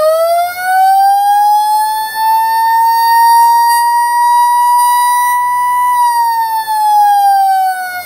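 Federal Model 28 electromechanical siren sounding the attack signal: a loud wail whose pitch climbs over the first two seconds or so, holds steady for about three seconds, then slides back down near the end.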